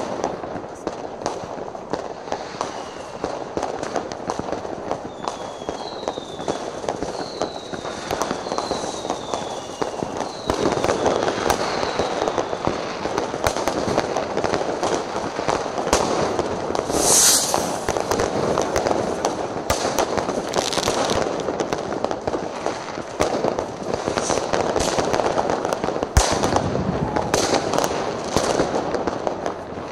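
New Year's Eve fireworks: a continuous din of many distant bangs and crackling rockets and firecrackers. Several short falling whistles sound in the first ten seconds, and a loud hiss about seventeen seconds in.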